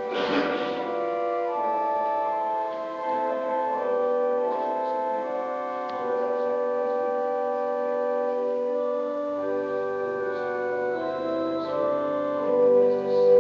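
Church organ playing a slow piece of sustained, held chords with a moving melody; a deep bass line comes in about two-thirds of the way through and the music grows louder toward the end.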